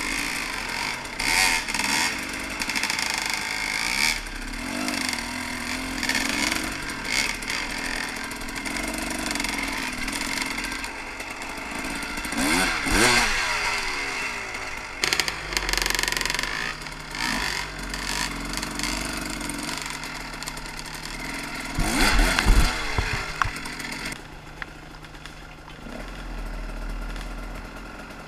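Husaberg TE 300 two-stroke enduro bike's engine revving up and down under load as it is ridden over rough ground, with knocks and wind on the helmet microphone. For the last few seconds it settles to a quieter, lower note.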